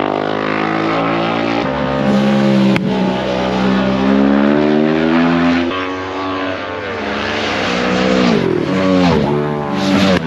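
Racing motorcycle engines at high revs. The pitch climbs steadily for a few seconds as a bike accelerates, then in the last few seconds it drops and rises sharply several times as bikes go past at speed.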